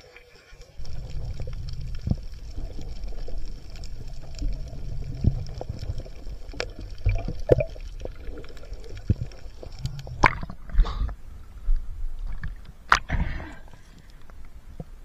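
Water rushing and gurgling around a camera carried underwater by a swimming diver, with scattered clicks and knocks. A couple of louder splashes come near the end as the camera breaks the surface.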